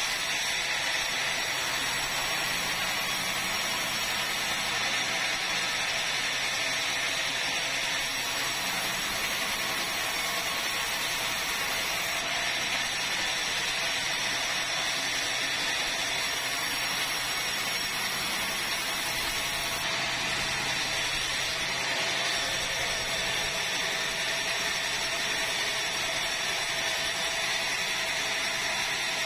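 Sawmill band saw running and cutting red meranti timber into boards. It makes a steady, unbroken machine noise.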